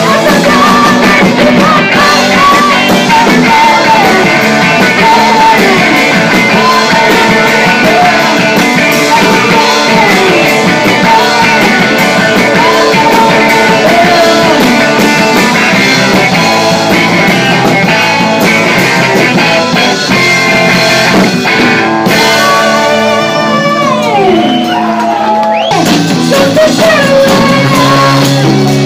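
Live rock band playing loudly with a woman singing lead into a microphone over guitar and drums. About three quarters of the way through, the band drops back for a few seconds under long sliding vocal notes, then comes back in.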